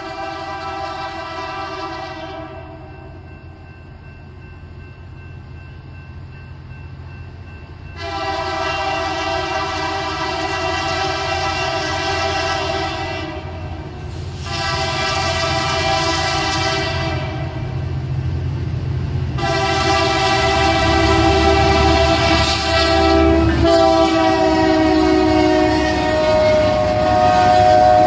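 Horn of a BNSF GP39-2 diesel locomotive sounding the grade-crossing signal: the end of one blast, then a long, a short and a long held blast. The last blast drops in pitch about two-thirds of the way through as the locomotive passes, over the steady rumble of the diesel engines.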